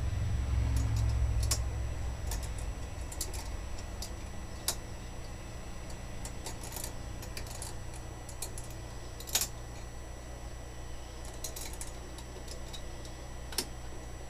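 Hand-turned lathe chuck and tap being backed out of a freshly tapped hole: scattered small metallic clicks and ticks, with three sharper clicks spread through. A steady low hum sits underneath, and cloth rubs against the microphone near the start.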